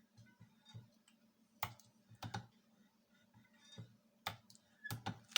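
Homemade battery spot welder firing: about six sharp snaps, some in quick pairs, as weld pulses join nickel strip to battery contacts.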